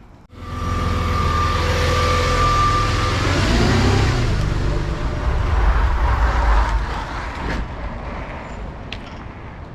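A motor vehicle driving, with steady engine and road noise and a low rumble. It comes in suddenly at the start and eases off over the last few seconds.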